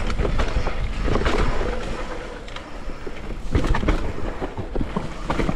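Downhill mountain bike riding a rough trail: a steady low rumble of tyres and wind on the camera microphone, with frequent sharp clicks and rattles from the bike over bumps and roots.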